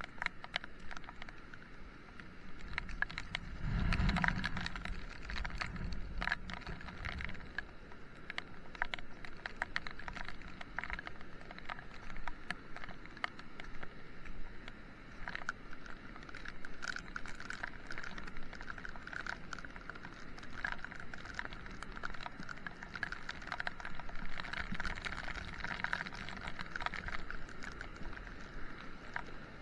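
Rain pattering close to the microphone in irregular taps, over the steady rush of a stream in spate. A low rumble comes in briefly about four seconds in.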